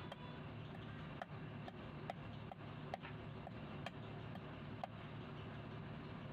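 Kitchen knife striking a cutting board as catfish are cut up, about two sharp taps a second, each with a brief ring, over a steady low hum.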